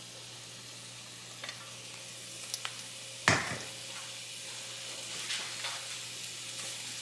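Onions and celery sizzling in olive oil in a pan on an induction cooktop, a steady low hiss. A few light clicks and one louder knock about three seconds in.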